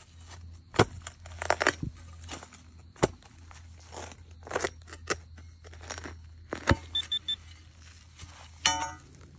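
Steel shovel digging into soil, with a series of separate chopping and scraping strikes. Near the end come three quick high electronic beeps and then a brief buzzing tone from the metal-detecting gear.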